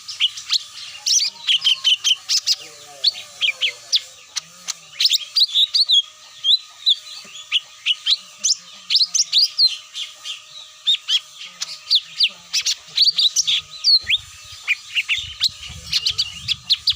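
Lure recording of cucak mini calls: rapid, sharp chirps and short whistled notes, several a second, in a continuous chattering stream, with a faint steady tone underneath.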